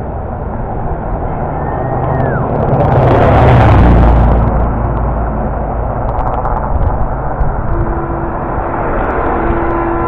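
A heavy vehicle passes close by on the road, its engine and tyre noise swelling to a peak about three to four seconds in, then fading. Near the end a vehicle horn starts sounding a steady note.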